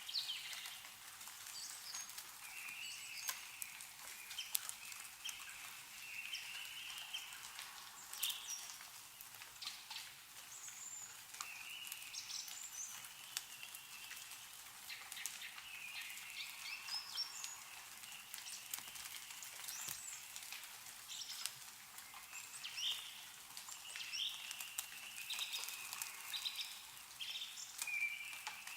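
Meltwater dripping and pattering from snow-laden trees in scattered, irregular drops, with small birds chirping on and off.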